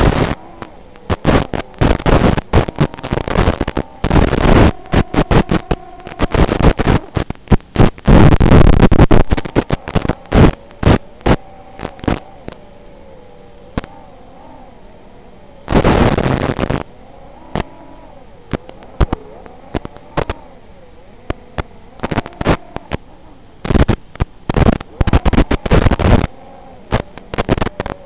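Crackling, popping static from an analog FPV video link's audio channel, coming in irregular bursts, heaviest about eight to ten seconds in and again around sixteen seconds, with faint wavering tones underneath.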